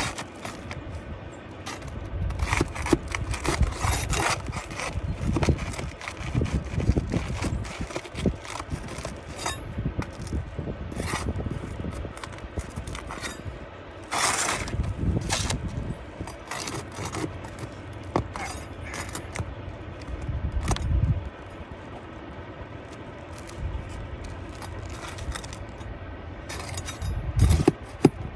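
Metal roofing tools scraping, clicking and clinking against asphalt shingles in irregular strokes, with one longer, louder scrape about halfway through: fasteners being pried out to free a damaged shingle.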